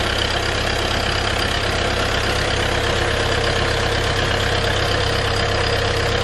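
Massey Ferguson tractor's diesel engine running steadily under load while belt-driving two tubewell pumps. Water gushes from the two outlet pipes into a concrete tank.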